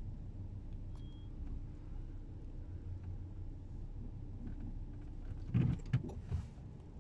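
Low, steady rumble of a car heard from inside the cabin as it moves slowly in traffic. A few short thumps come close together about five and a half seconds in, the loudest sounds here.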